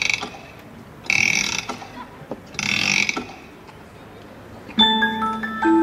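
Music-box winding: three short bursts of fast ratcheting clicks as the crank is turned, then a tinkling music-box melody of chiming notes starts near the end.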